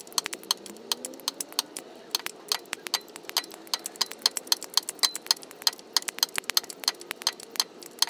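Hand ratchet clicking rapidly, several clicks a second in uneven runs, as it is swung back and forth to back out a starter mounting bolt.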